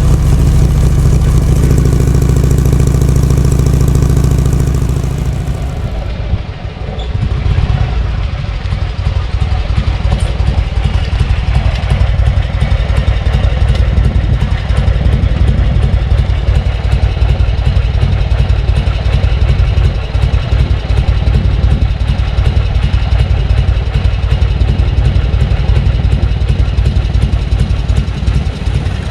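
Harley-Davidson Shovelhead FLH's V-twin engine, being run in after an abnormal-noise repair, running at steady revs, then easing off about five seconds in and running at low revs with an even, rapid pulse.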